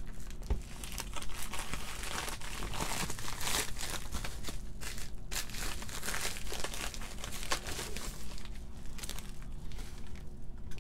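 Plastic shipping mailer and bubble wrap crinkling as hands unwrap a small boxed package, with a steady run of quick crackles.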